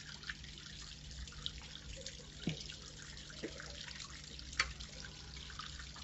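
Water trickling and dripping from a garden pond fountain, with scattered small drips and plops over a low steady hum.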